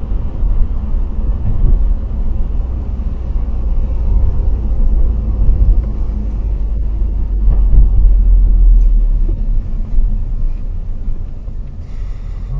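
Low, steady road and engine rumble inside a moving car's cabin, picked up by a windshield dashcam. It grows quieter near the end as the car slows toward a stop, with a brief hiss just before the end.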